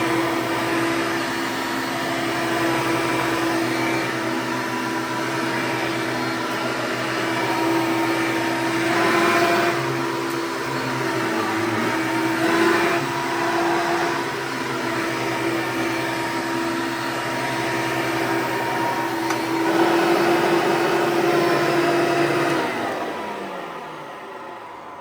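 Hoover Elite II TSP 430 upright vacuum cleaner running steadily, then switched off near the end, its motor falling in pitch and fading as it winds down.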